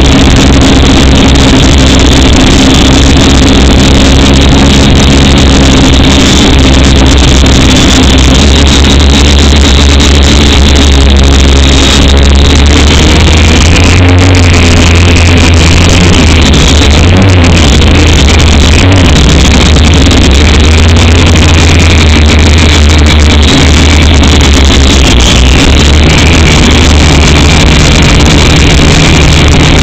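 A drone's motors and propellers buzzing loudly, heard from the drone's own camera, holding a steady pitch with a dip and rise in pitch around the middle as it manoeuvres.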